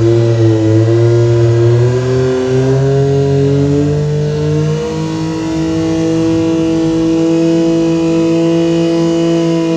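Turbocharged Yamaha YXZ1000R's three-cylinder engine running under way, its pitch climbing over the first few seconds and then holding steady.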